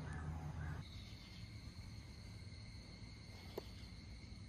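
A steady low hum breaks off just under a second in. After it comes a continuous high-pitched insect trill, a cricket, with one small click about three and a half seconds in.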